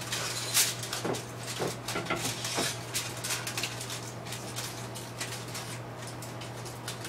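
Aluminium foil crinkling in quick, irregular crackles as it is pressed tightly around the rim of a pan, with a few light knocks of the pan. A low steady hum runs underneath.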